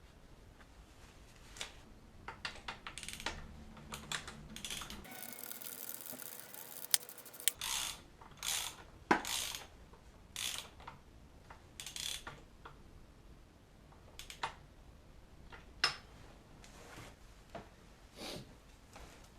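Hand tools working on metal engine parts: irregular clicks, short scrapes and ratcheting, with a brief hiss about five seconds in.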